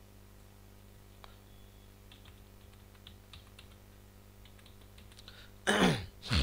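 Computer keyboard typing: faint, scattered key clicks as a word is typed, followed near the end by a short, louder burst of a man's voice.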